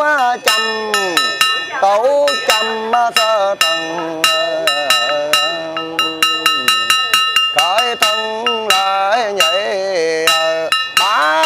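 A Buddhist monk chanting a Vietnamese funeral sutra in long, melodic sung phrases, over a small metal bell struck in a quick, steady rhythm whose ringing hangs on between strokes.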